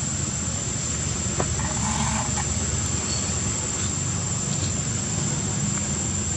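Insects giving a steady high-pitched drone over a continuous low background rumble.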